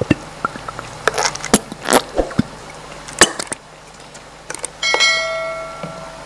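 Utensils clinking against a small bowl several times, then one clear ringing clang about five seconds in that dies away over a second.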